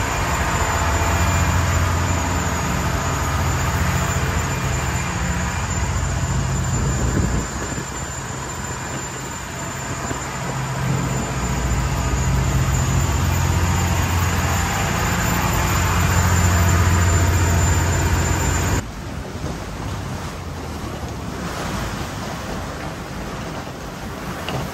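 Passenger ferry under way: a steady low engine drone with rushing water from the wake and wind on the microphone. Near the end it cuts off suddenly and gives way to a quieter steady noise.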